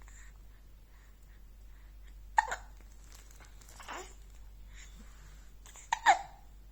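Hiccups: three short, sharp hiccups about a second and a half to two seconds apart, the last the loudest.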